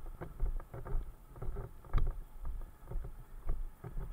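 Walking footsteps on a road, about two steps a second, with the thumps and rustle of a camera carried on the walker.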